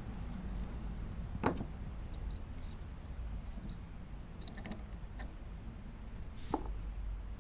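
A few scattered, sharp knocks and clicks over a steady low rumble. The loudest knock comes about one and a half seconds in, with several lighter ones in the second half.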